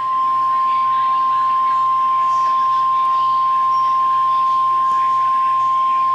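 NOAA Weather Radio warning alarm tone: a single loud, steady 1050 Hz tone held without a break. It is the alert signal that switches on specially built weather-radio receivers, sounded here as a weekly test.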